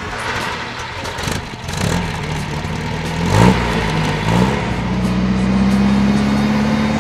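1959 MGA's 1600 cc four-cylinder engine, just started, revved in three quick blips between about two and four and a half seconds in, then running at a steady, slowly climbing speed.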